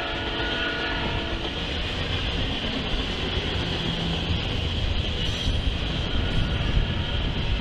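Double-stack container and trailer cars of an intermodal freight train rolling past, a steady rumble of wheels on rail. A train horn is still sounding at the start and stops about a second and a half in.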